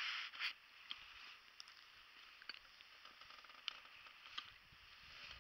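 Faint rustling with a few small, scattered clicks and creaks from someone shifting inside a wooden hunting blind.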